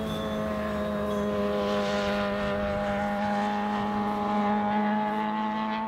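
A steady low drone of several held tones that do not change in pitch, a sustained electronic pad of the film's score, with a soft hiss swelling in and out about two seconds in.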